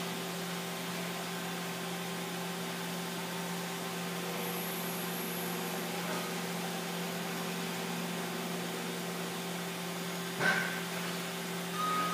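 Mazak Integrex i200ST CNC mill-turn centre running through its machining cycle behind its closed enclosure: a steady machine hum with a constant hiss. A single knock comes about ten and a half seconds in.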